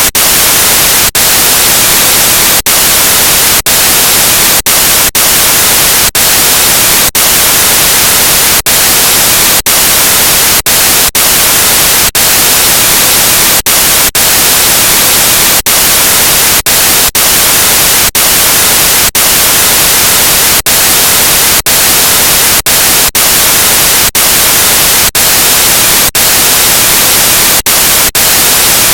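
Loud, steady hiss of static, cut by brief gaps of silence about once a second.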